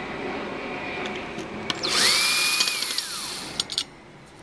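Cordless drill-driver with a small torx bit backing a screw out of a hard drive case: about two seconds in, the motor spins up to a high whine, holds briefly, then winds down, followed by a few light clicks.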